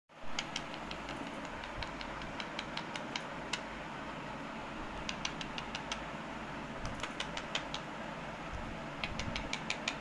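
Indian ringneck parrot's beak tapping on a smartphone's glass screen: runs of quick sharp clicks, about five a second, coming in several bursts over a steady background hiss.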